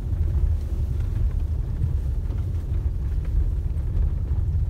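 Steady low rumble of a car driving slowly over a rough dirt and gravel road, heard from inside the cabin: engine and tyre noise.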